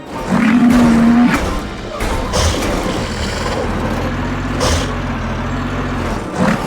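Cartoon vehicle engine sound effect: a steady motor hum, with two brief whooshes partway through.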